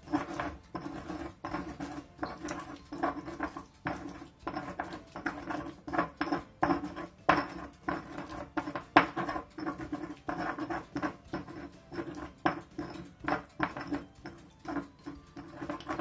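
Stone pestle grinding green chilli paste, with salt and sugar, in a stone mortar (Indonesian cobek and ulekan). It is a rhythmic series of gritty scraping and crushing strokes, about two a second.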